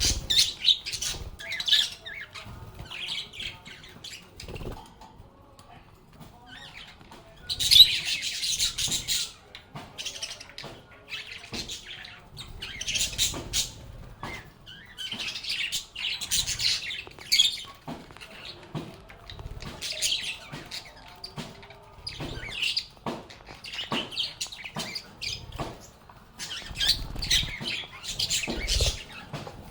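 Lovebirds chirping and chattering in quick, high-pitched bursts, with a short lull about five seconds in and the loudest outburst a couple of seconds later.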